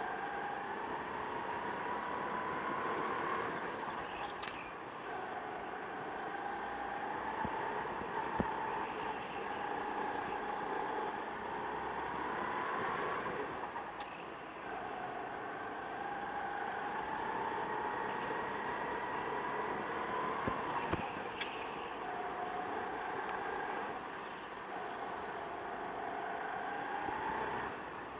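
Go-kart heard from on board, its pitch climbing for several seconds as it accelerates, then dropping back as it slows, about four times over. A few short sharp knocks come in between.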